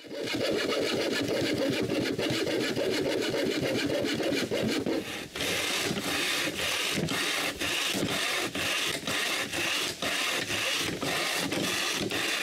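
Saw cutting wooden moldings: a steady rasping run of strokes that settles into an even rhythm of about two strokes a second from about halfway through.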